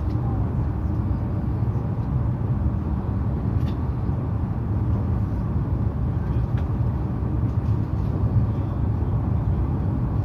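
Steady low rumble of a Narita Express E259-series electric train running, heard from inside the passenger car, with a few faint clicks.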